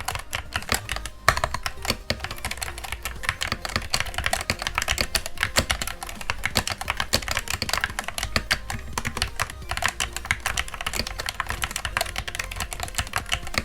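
Typing on a Gamakay MK61 keyboard with stock, unlubricated Gateron Yellow optical switches, stock keycaps and no internal foam: a continuous run of quick keystrokes, many a second, that sounds a bit hollow.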